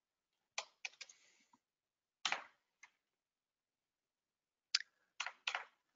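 Typing on a computer keyboard: about eight separate key presses in three short groups with pauses between them.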